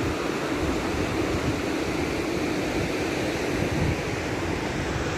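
A steady rushing noise with a low rumble underneath, even throughout.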